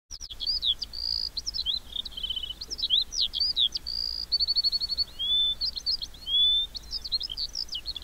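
Small songbirds singing in trees: a near-continuous run of high whistled notes, quick up-and-down chirps and rapid trills of repeated notes.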